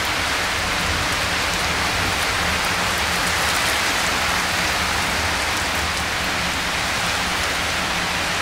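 Steady hiss of rain, even and unbroken, with a faint low hum underneath.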